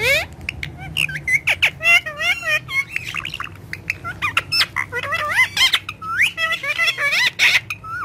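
Male Indian ringneck parrot calling in a fast, continuous run of squawks, chirps and warbling whistled calls that swoop up and down in pitch, opening with a loud rising call.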